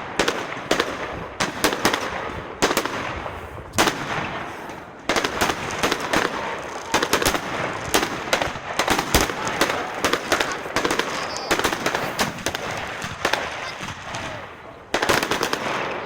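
Fireworks display: rapid, repeated bangs of exploding shells over a dense crackle, easing off briefly about fourteen seconds in before a sudden loud bang near the end.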